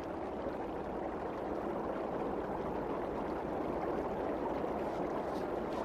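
Running water: a stream flowing with a steady, even rush.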